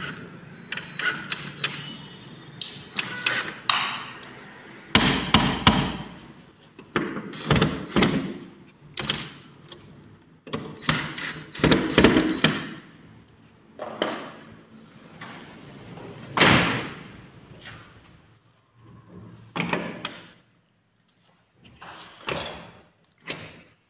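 Aluminium sliding door and its frame being worked while a door lock is fitted: a series of separate knocks, clacks and bumps at irregular intervals, some loud, fewer and further apart near the end.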